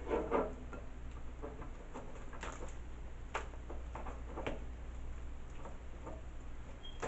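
Hands pulling apart a hot boiled Dungeness crab: irregular small clicks and crackles of shell breaking and being handled on foil.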